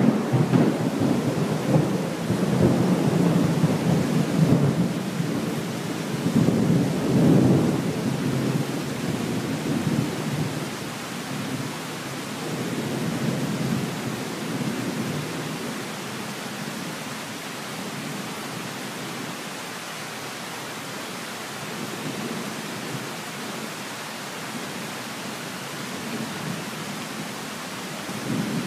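Thunder rolling in a long, uneven rumble that fades away over the first several seconds, over steady heavy rain of a tropical thunderstorm; the rain continues on its own after the rumble dies down.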